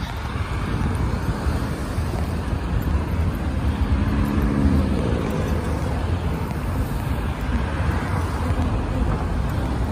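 Road traffic: cars driving through an intersection, a steady rumble of engines and tyres, with one car's engine heard passing close about four to five seconds in.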